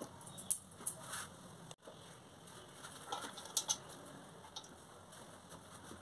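Soft pats and light taps of chopped tomato and herbs dropped by hand into a stainless steel bowl of raw chicken, with a few sharper clicks mixed in.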